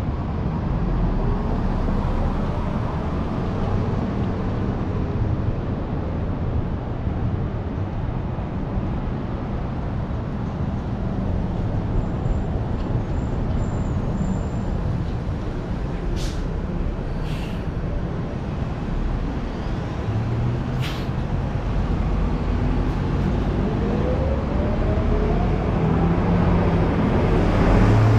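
Downtown street traffic: a steady low rumble of passing cars and trucks, with an engine note rising as a vehicle accelerates near the start and again near the end. A few short, sharp high-pitched sounds cut through about two-thirds of the way in.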